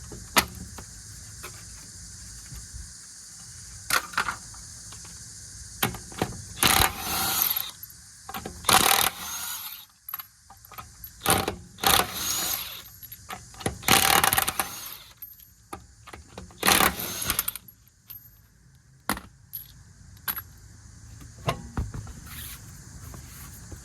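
Lug nuts being taken off a car's rear wheel: a string of short bursts of tool noise and metallic clinks, spaced a second or two apart, with quieter pauses between.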